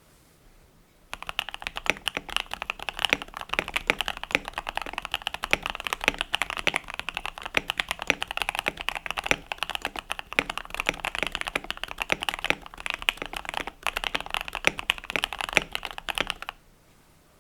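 Fast, continuous typing on a modded KBD67 Lite R3, a gasket-mounted 65% mechanical keyboard, played as a sound test. The keystrokes start about a second in, with a couple of brief pauses, and stop about a second before the end.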